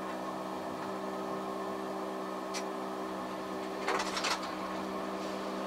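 Steady hum of several even tones, recorded through a dashcam inside a moving car, with a faint click partway through and a short rattle about four seconds in.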